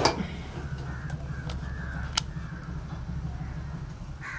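A steady low hum with a few sharp clicks, and faint bird calls in the background.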